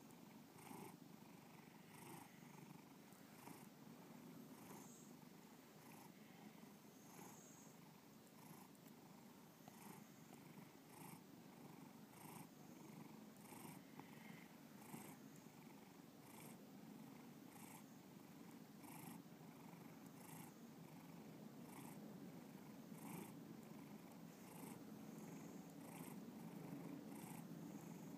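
Domestic cat purring close to the microphone: a faint, steady, low purr that pulses in an even rhythm throughout.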